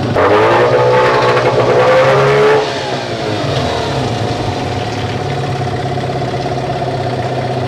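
Two-stroke twin outboard motor (Tadpole, a Yamaha 9.9/15 copy) running with the gearbox shifted into reverse: it revs up suddenly, holds the higher revs for about two and a half seconds, then drops back to a steady idle. The rebuilt gearbox is being tested, and the gears work.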